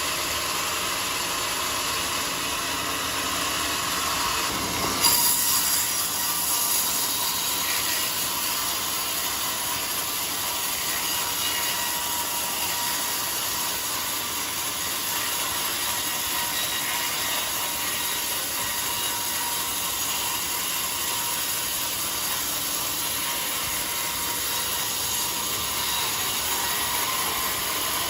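Band sawmill running steadily, its blade sawing through a jackfruit log with a continuous hiss, and a brief louder clatter about five seconds in.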